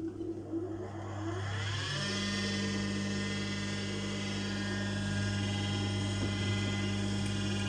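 Industrial sewing machine motor starting up: its whine rises in pitch for about a second and a half, then runs steady over a constant hum.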